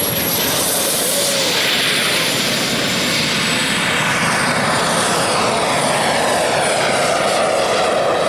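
Turbine engine of a radio-controlled model jet making a fast low pass and pulling up into a climb. Its loud whine and rush drop steadily in pitch as it goes by and away.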